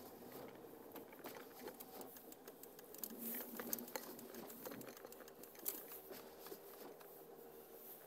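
Faint, irregular crackling and ticking of car tyres rolling over packed snow and ice, heard inside the car's cabin, with a low steady hum under it and two sharper clicks a little after the middle.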